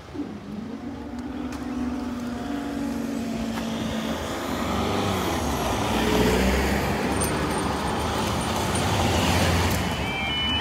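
Road traffic at a level crossing: car engines and tyre noise building up as vehicles move. A steady hum runs through the first few seconds.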